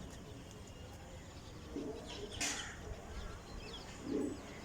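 Faint outdoor background with small birds chirping, and a short rushing noise about two and a half seconds in.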